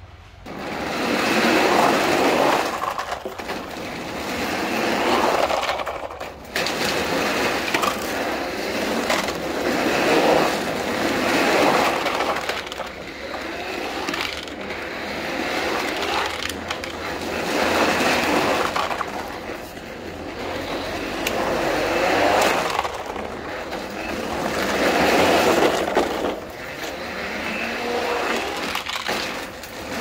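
Plastic toy trucks rolling across rough concrete: a gritty rattling scrape of hard plastic wheels. It swells and fades every two to three seconds as one toy after another rolls past.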